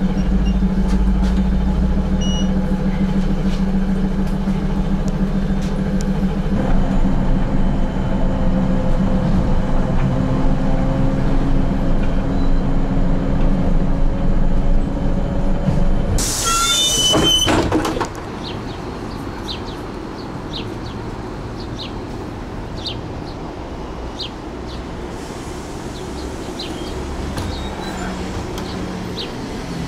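Inside a moving trolleybus: the electric drive hums steadily, its pitch shifting about six seconds in, and a loud burst of compressed-air hiss comes about sixteen seconds in. For the last twelve seconds it gives way to quieter street traffic noise with a few short high chirps.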